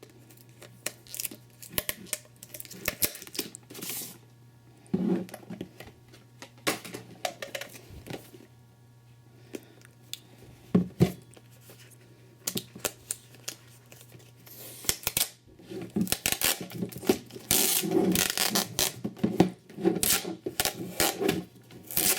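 Packing tape being torn and peeled off a GoPro HD Hero2 retail package, with scattered clicks and rustles of the packaging. It is sparse at first and grows busier and louder over the last several seconds.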